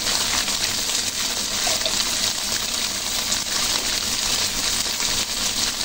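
Tofu, fish balls and shallots sizzling in oil in a hot wok, a steady crackling frying hiss.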